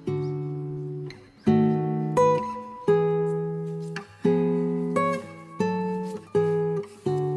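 Background music: acoustic guitar chords, struck about once or twice a second and left to ring.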